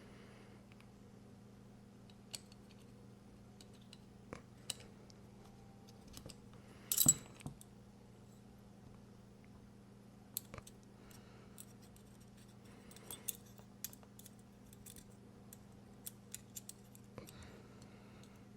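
Small metal knife parts and tools clicking and clinking on a work surface during folding-knife reassembly: scattered light ticks, with the loudest clatter about seven seconds in, over a faint steady hum.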